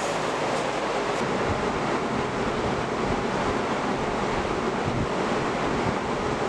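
Steady, even rushing noise with no distinct strikes or tones in it.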